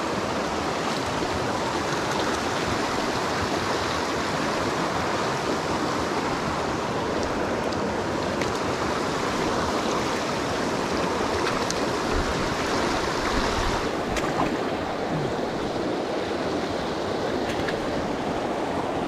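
Shallow rocky stream running over stones: a steady wash of rushing water.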